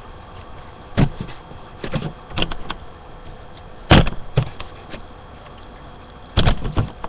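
Plastic clicks and knocks of a Nerf Retaliator blaster being taken apart, its stock, barrel extension, grip and clip unclipped and set down. About half a dozen separate knocks, the loudest about four seconds in, with a quick cluster near the end.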